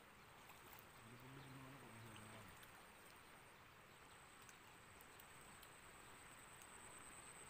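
Near silence: faint open-air ambience with a thin, steady high-pitched whine. A faint, low, drawn-out vocal sound comes about a second in.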